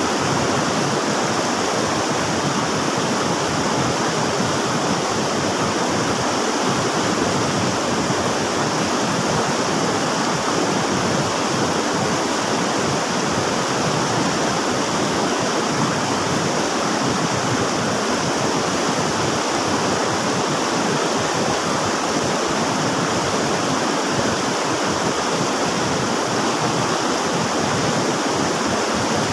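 River water rushing and churning in a steady, even wash, like a fast stream or small waterfall.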